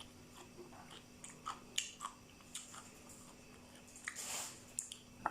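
A person chewing a Thai mixed seafood salad close to the microphone: soft crunchy bites and wet mouth clicks at irregular moments, with a brief louder noisy rush of air about four seconds in.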